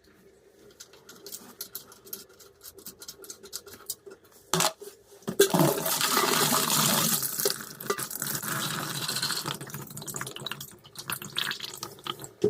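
Small plastic clicks as a toilet fill valve's supply hose and retaining nut are undone, a sharp knock, then from about five seconds in several seconds of water splashing into a basin as the leftover water in the tank drains out through the valve opening.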